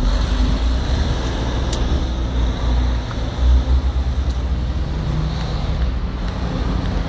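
Diesel engine of a camouflaged Mercedes-Benz prototype truck rumbling steadily as it drives past pulling a box trailer, amid road traffic.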